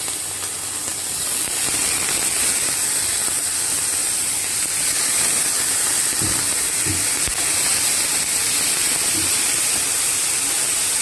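Mushrooms sautéing in oil in a frying pan: a steady, high sizzling hiss, with a few soft knocks of the metal spatula stirring them about six to seven seconds in.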